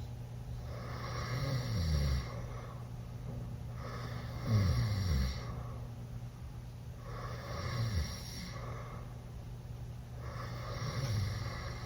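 A teenage boy snoring loudly with his mouth open after drinking. There are four snores roughly three seconds apart, each a rasping breath whose pitch slides downward, over a steady low hum.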